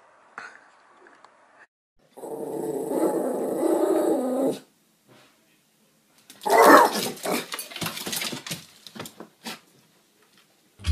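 A dog growling for about two and a half seconds, then, after a pause, a loud burst and a run of short sharp sounds that fit barking.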